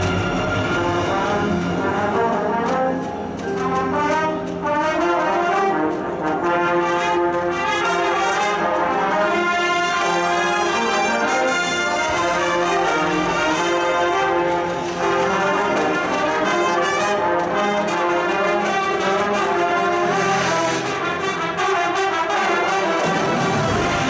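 Marching band playing, led by a full brass section with front-ensemble percussion beneath it. The low brass and bass drop out just before the end.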